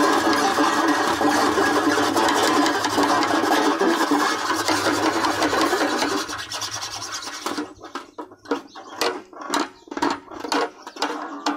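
Open-back banjo strings scraped with a deer antler: a loud, continuous rasp with some pitch for about six seconds, then a run of short separate scrapes, two or three a second.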